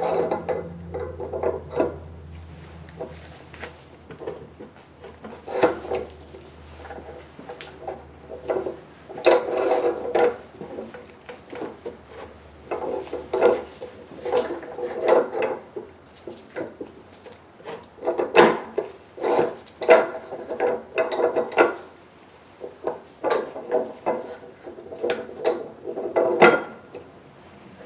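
Repeated knocks, clinks and scrapes of small metal engine parts, the Saito crankcase and its crankshaft bearings, being handled and set down on a workbench, coming in clusters with short rings. A faint low hum runs under the first few seconds.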